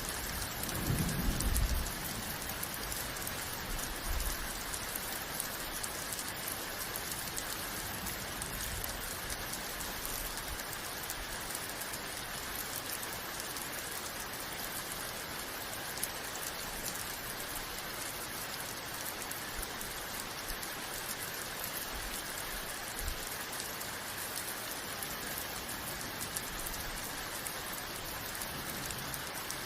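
Steady rain falling, an even hiss of drops. About a second in there is a brief low rumble.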